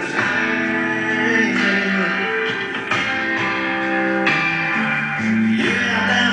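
Music with guitar playing through a Yamaha RX-V2090 stereo receiver and its speakers.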